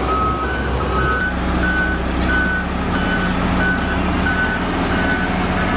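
XCMG XS223JE single-drum road roller: its diesel engine runs steadily while its reversing alarm gives short, high beeps about one and a half times a second, the sign that the roller is backing up.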